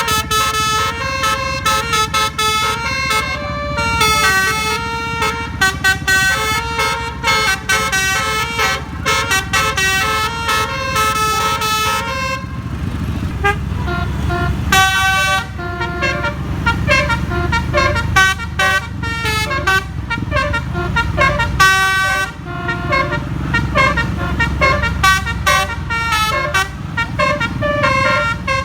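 A bus's basuri telolet air horn, a multi-tone musical horn, playing a fast melody of quickly changing notes over the low rumble of the engine and road. About twelve seconds in, the tune changes to a different pattern.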